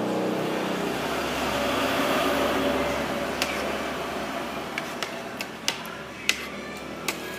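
A motor vehicle passing on the road, its noise fading over the first three seconds, then a string of sharp, irregular knocks, about seven in all.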